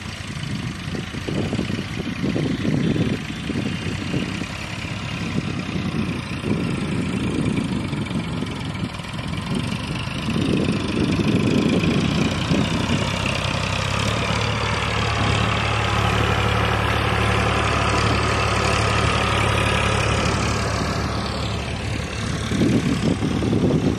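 Three-cylinder Eicher diesel tractor engine working under load as it pulls a soil-filled levelling blade, growing to a steady, loud hum as it passes close about two-thirds of the way in, then fading. Irregular gusts of wind buffet the microphone before it comes near.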